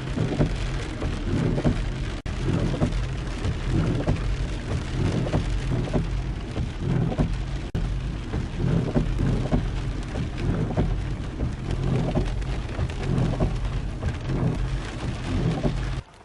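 Heavy rain falling, with a steady low rumble under the hiss of the rain. It cuts off sharply near the end.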